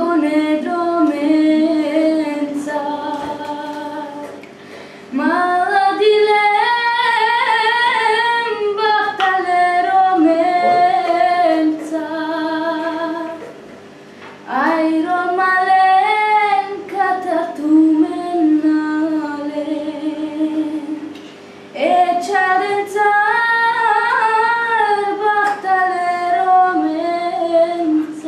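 A teenage girl singing solo and unaccompanied, in long phrases with a wavering, ornamented pitch and short breaks between them.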